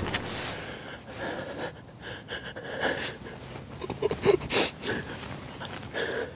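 A man breathing hard in short, irregular gasps and wheezes, excited and grinning.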